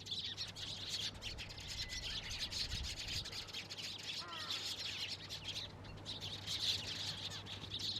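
A flock of Eurasian tree sparrows chirping in a dense, continuous chorus of short high calls, over a steady low hum.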